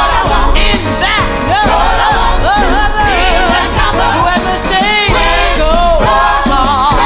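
Gospel choir and lead singer singing with wavering vibrato notes over a live band with drums and keyboard, the drums keeping a steady beat.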